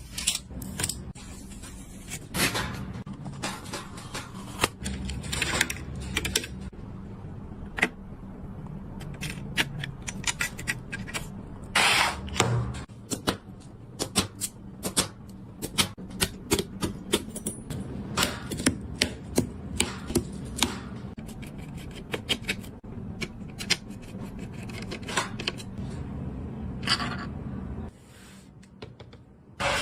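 Irregular clicks, taps and scrapes of computer parts being handled and fitted during a PC build, over a steady low hum that stops near the end.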